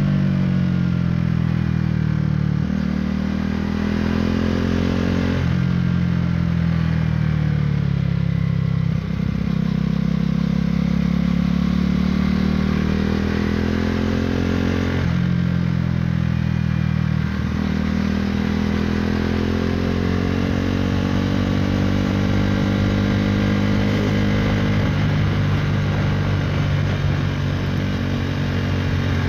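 KTM Duke 390's single-cylinder engine through an Akrapovič racing-line exhaust, under way: the pitch climbs as the bike pulls and drops sharply at several gear changes, about half a dozen times.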